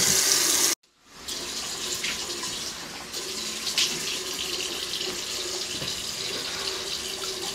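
Water running from a sink faucet in a loud steady stream, cutting off suddenly just under a second in; a quieter steady running-water hiss then comes back and continues.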